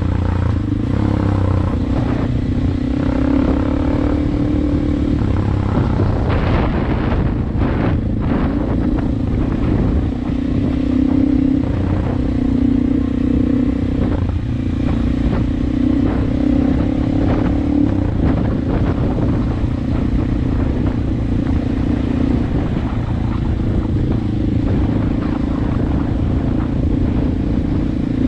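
Dirt bike engine running at a fairly steady pace while being ridden, over a low rumble, with a few short knocks about six to eight seconds in.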